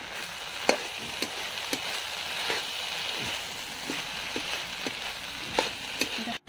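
Drumstick (moringa) leaves and diced vegetables sizzling as they are stir-fried in a metal pan. A spatula scrapes through them and knocks against the pan about nine times, at irregular intervals.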